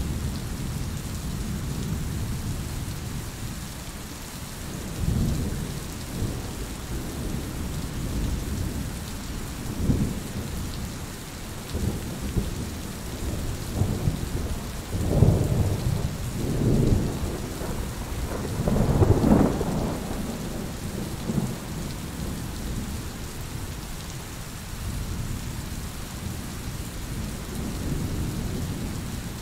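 Steady rain with low rolls of thunder rumbling through it, the loudest thunder just past the middle.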